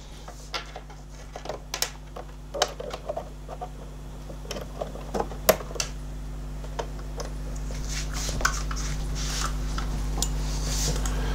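Clicks, scrapes and light rattles of a USB flash drive being handled and plugged into a video recorder's USB port, over a steady low hum. A low rumble grows louder in the second half.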